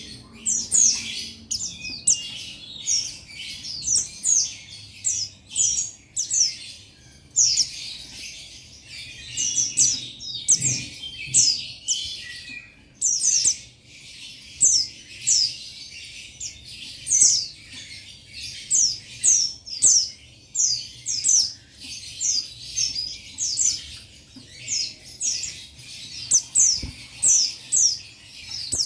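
Male Oriental white-eye (pleci buxtoni) singing a long, near-continuous run of rapid, high, sharply falling chirps in quick clusters. This is the rival-calling song of a male white-eye.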